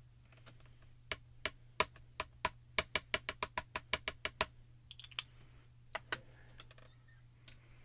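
Small ink cube tapped repeatedly against a clear photopolymer stamp to ink it: a run of about fifteen quick, sharp taps that speeds up, then a few scattered taps.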